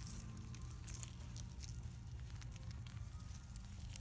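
Soft rustling, patter and scattered small clicks from a litter of young Labrador puppies crawling and shuffling over a fleece blanket on grass, over a steady low rumble.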